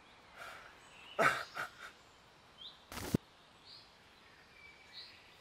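Quiet forest background with a few short, high bird chirps, and a man's heavy, shaky breath about a second in. About three seconds in there is a short, sharp burst of noise.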